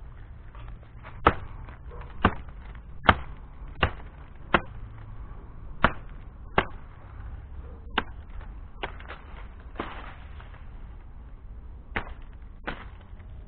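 A blade, likely a machete, chopping into a sapling's trunk: about ten sharp strokes roughly a second apart, the loudest in the first few seconds, with a pause before two last strokes near the end.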